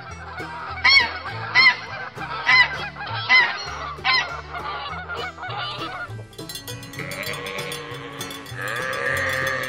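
Domestic goose honking five times in short calls that rise and fall in pitch during the first half. Then sheep bleating over the steady rush of a stream.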